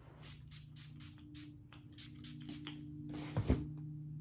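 A pet grooming wipe rubbed in quick strokes over a dog's short fur, about four swishes a second, then a louder rustle and thump about three and a half seconds in.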